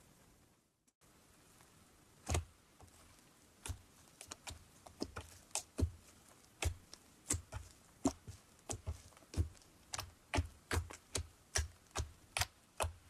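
Fingers poking and pressing into slime, squeezing out trapped air in sharp clicking pops. The pops start about two seconds in and come more often toward the end, two or three a second.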